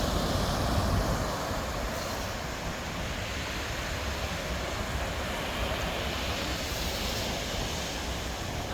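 Steady rushing noise of wind and gentle surf, with the wind rumbling low on the microphone.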